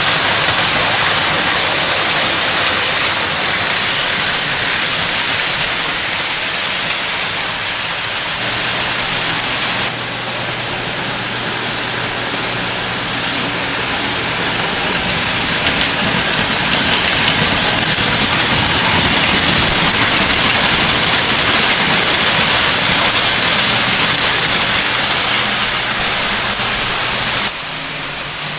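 Lionel O-scale three-rail toy trains running on metal track: a steady rushing rumble of wheels on rail, with a faint low hum partway through. The sound drops abruptly about ten seconds in and again near the end.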